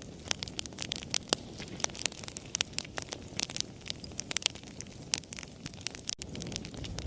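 Wood fire crackling, with frequent sharp pops and snaps, several a second, over a low rumble of flames.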